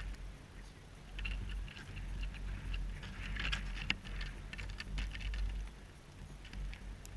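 Wind rumbling on the camera microphone, with scattered crackles and rustles of dry weeds and snow, busiest in the middle and thinning out near the end.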